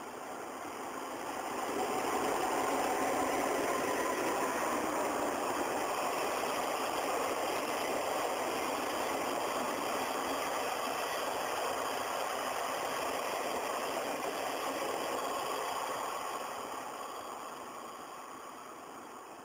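EF65 electric locomotive hauling a short electric train past at low speed: a steady running noise that swells about two seconds in, holds, and fades away over the last few seconds.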